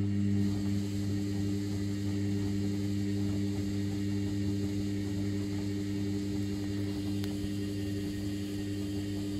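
Sharp (Vestel) ES-GFB7145W washing machine running during a 90° boil wash, a steady electric hum for about nine seconds that then cuts off sharply.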